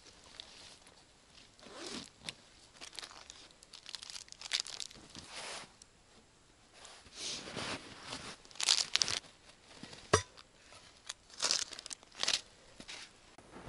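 Dry woody brush crunching, tearing and rustling in irregular bursts, with one sharp snap about ten seconds in.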